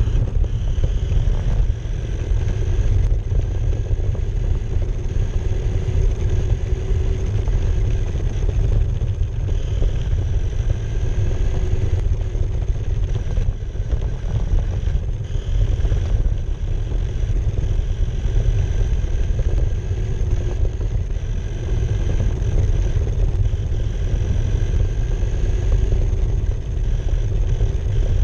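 RC car driving over asphalt, heard from a camera mounted on its body: a loud steady rumble of tyres and chassis vibration, with a faint whine from the motor and gears that swells and fades as it speeds up and slows.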